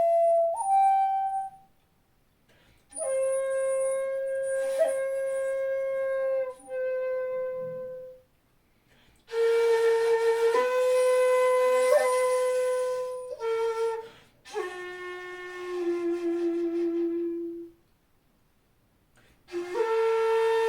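Jinashi shakuhachi, a 2.0-shaku bamboo end-blown flute in C, playing long held notes in short phrases with pauses for breath between them. A lower held note closes the third phrase.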